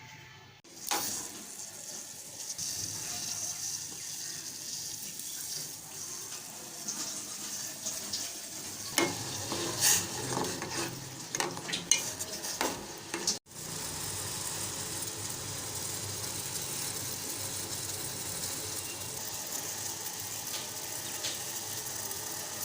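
Pot of water heating on a stove with a steady hiss. In the middle, a spoon clinks and scrapes against the pot as it stirs. The sound cuts off sharply about 13 seconds in and the hiss starts again.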